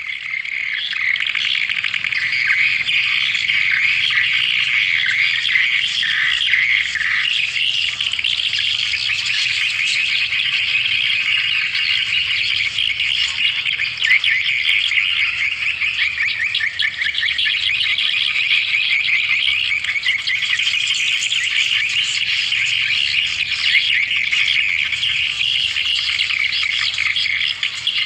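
Swiftlet calls: a dense, continuous chorus of rapid, high twittering chirps. This is the swiftlet lure call used to draw the birds in to a nesting house.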